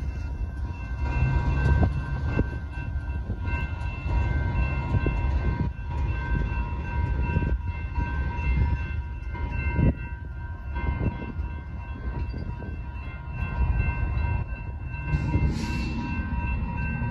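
Railroad crossing bells ringing steadily over the low running of a departing diesel freight train, its rear distributed-power locomotive a GE C44-9W, with scattered wheel clicks on the rails. Near the end a short hiss and a low hum come in.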